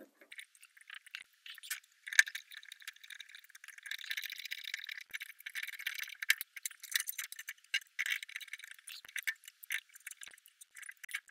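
Thin metallic clicks, scrapes and rattles of a screwdriver tightening PV wires into the screw terminals of a solar inverter's terminal block.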